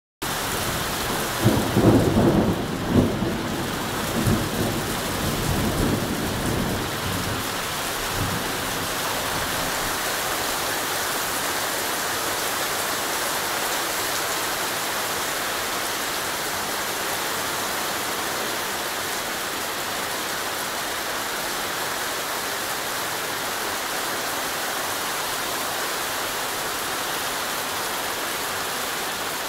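Heavy thunderstorm rain pouring down steadily, with a rumble of thunder in the first few seconds that peaks a couple of seconds in and dies away by about eight seconds in.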